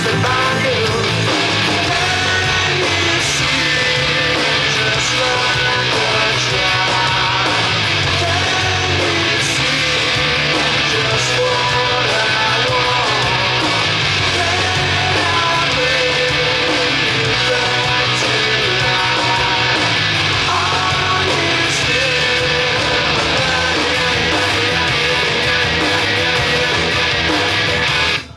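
Loud rock music with guitar, cutting out briefly at the very end.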